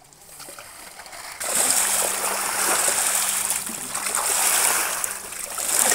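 Wet mud and shallow water splashing and sloshing as hands dig and scoop through a mudflat. It starts suddenly about a second and a half in.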